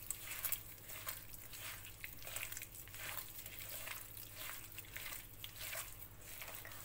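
A bare hand squeezing and mixing margarine, sugar, oil and egg in a glass bowl: wet squelching strokes, about two or three a second.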